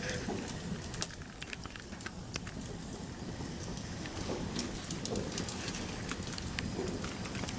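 Open wood campfire crackling: a steady hiss with scattered, irregular sharp pops and snaps from the burning wood.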